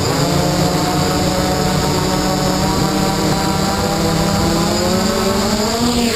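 Electric motors and propellers of a DJI hexacopter spinning on the ground: a steady, loud multi-rotor buzz whose pitch rises near the end as the throttle comes up for lift-off.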